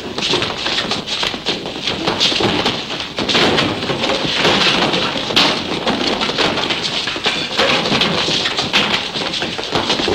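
Fistfight sound: scuffling, blows and wooden chairs being knocked about, a dense run of knocks and thuds.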